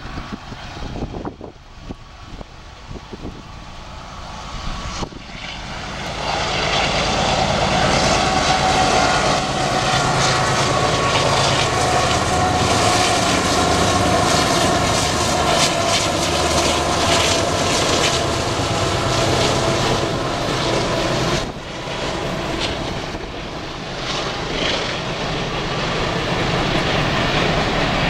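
Two BNSF diesel locomotives at the head of a coal train passing close by: their engines build to a loud, steady rumble about six seconds in. About three-quarters of the way through, once the locomotives are past, the level drops and the coal cars roll by on the rails.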